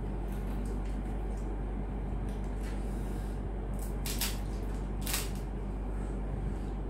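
Crisp pani puri shells being cracked open by hand and eaten, with a few short crackly crunches, the clearest about four and five seconds in, over a steady low hum.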